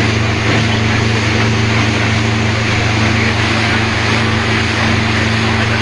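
Lancha's outboard motor running steadily underway, with a constant rushing hiss of water and wind over it.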